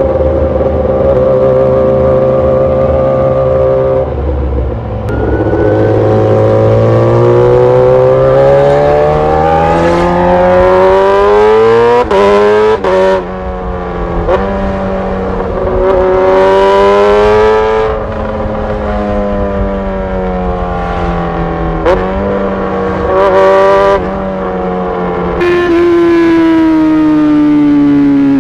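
Sport motorcycle engines heard from the rider's seat under hard acceleration: the revs climb, drop sharply at each of several quick upshifts and climb again. Near the end the engine note falls steadily as the bike slows.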